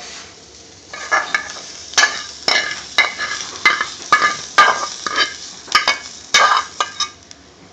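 Metal spoon scraping and clinking against a metal frying pan, about two strokes a second, as stir-fried paneer is spooned out onto a serving dish.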